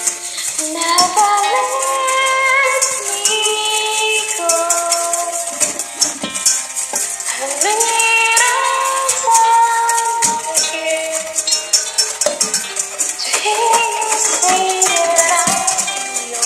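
Background music: a melody of stepped notes over a steady shaker rhythm.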